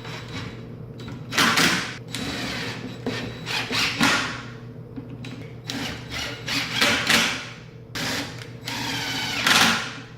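Cordless drill/driver running in several short bursts, its motor whine rising as it spins up, driving pocket-hole screws to join melamine cabinet-box panels.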